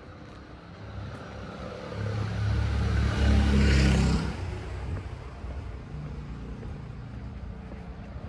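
A motor vehicle drives past on the street. Its engine and tyres swell to a peak about three to four seconds in, then fade.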